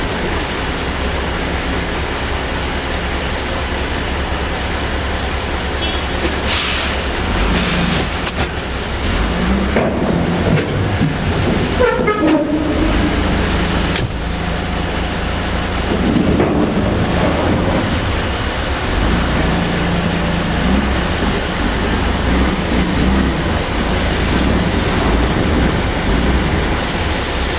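MAN TGX truck's diesel engine running steadily, heard from inside the cab, with a brief squeak about twelve seconds in and a few short hisses earlier on.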